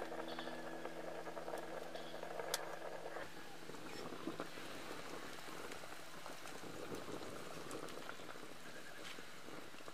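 Broth boiling in a clay pot over a wood fire: a steady bubbling hiss with scattered small pops and crackles. Background music fades out in the first few seconds.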